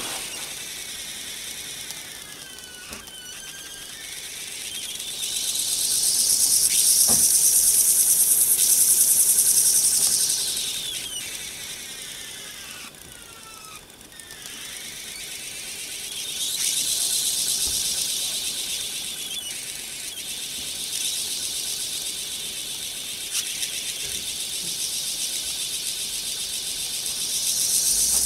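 Microcosm T1B brass Hero's engine (aeolipile) spinning on its own steam jets: a steady hiss of escaping steam that swells loud three times, with a thin squealing whistle that slides down and up in pitch.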